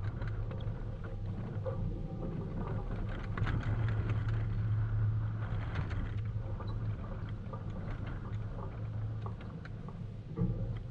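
Steady low outdoor rumble, swelling a little in the middle, with faint scattered clicks and taps over it.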